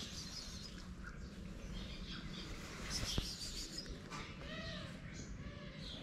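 Small birds chirping in the background of a street, with two short arching calls a little past the middle.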